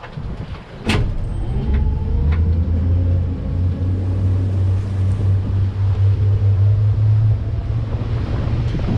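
Water taxi's boat engine speeding up about a second in after a click, then running with a steady low hum.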